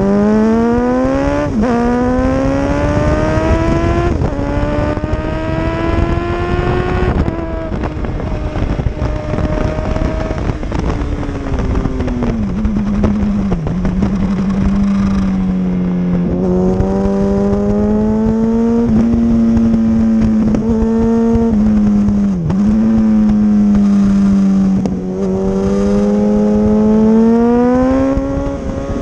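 Motorcycle engine accelerating hard through the gears. The pitch climbs and falls back briefly at each shift, about two, four and seven seconds in, then holds at high revs with short dips and rises.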